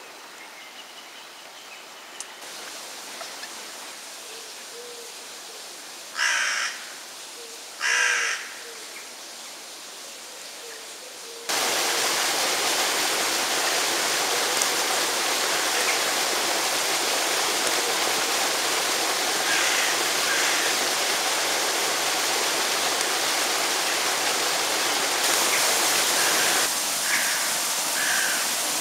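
Two loud, harsh bird calls about two seconds apart. Then, after a sudden change about a third of the way in, a loud steady hiss with a few faint calls in it.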